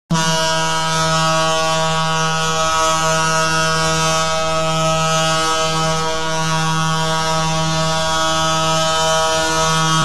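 Ice hockey goal horn sounding one long, steady, low-pitched blast that starts abruptly.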